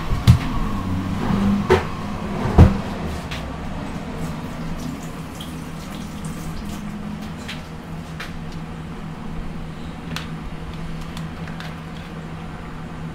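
A few sharp knocks of kitchen things being handled and set down in the first three seconds. Then a pot of quail eggs boiling on the stove, the water bubbling with faint scattered ticks over a steady low hum.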